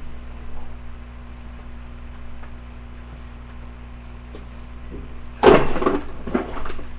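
Handling noises: faint clicks over a steady low hum, then a loud rustling clatter about five and a half seconds in, followed by a shorter one.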